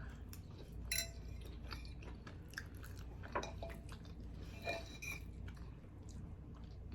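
Close-up eating sounds of a person chewing soft rigatoni pasta in sauce: quiet wet mouth noises with a few small clicks.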